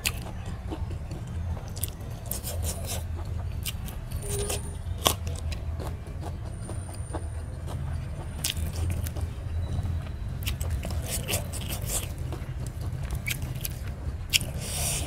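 Eating by hand: fingers mixing rice and curry against a steel plate, with chewing and mouth clicks, as many small irregular clicks and scrapes over a steady low hum.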